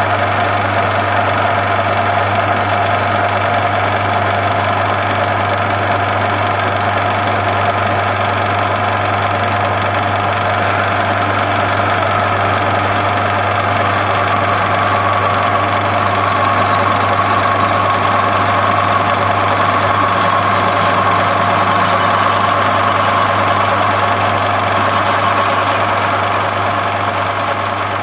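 Lathe running steadily in reverse while a ball is turned with a radius-turning fixture: a constant motor hum with a steady whine that grows a little stronger about halfway through.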